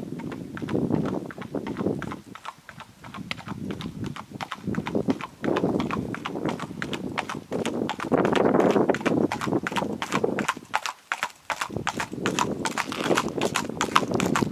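Horse's shod hooves clip-clopping on a paved driveway at a brisk, even gait, the strikes growing louder and clearer as the horse comes closer. An uneven low rushing noise swells and fades underneath.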